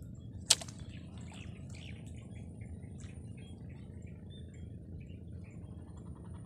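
Quiet outdoor ambience at a pond's edge: a steady low rumble with faint, scattered short chirps. A single sharp click about half a second in is the loudest sound.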